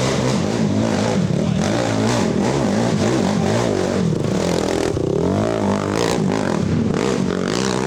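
Racing ATV engines revving up and down over rough terrain, the pitch rising and falling as the riders work the throttle, with one big rise and fall about five seconds in.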